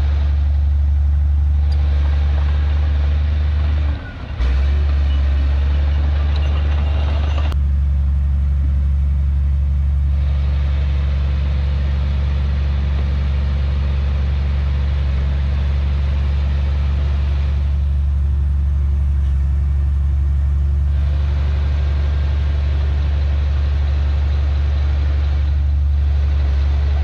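Heavy diesel engine of earthmoving machinery running steadily with a deep drone, with a brief drop in level about four seconds in.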